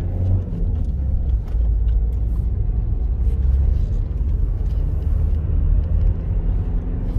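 Road noise inside a moving car's cabin: a steady low rumble of engine and tyres while driving.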